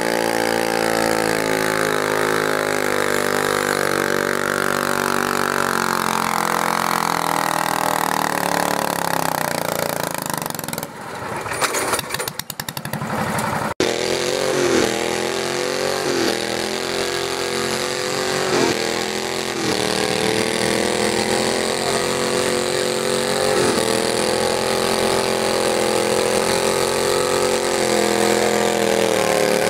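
Garden tractor engine running hard, its pitch sinking steadily over about ten seconds. The sound breaks up briefly around twelve seconds in, then an engine runs on steadily with a few short dips and recoveries in revs.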